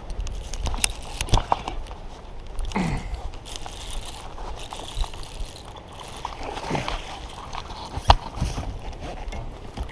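Water sloshing and splashing around a fishing boat, with scattered knocks and clicks and a steady low rumble; the sharpest click comes a little after eight seconds in.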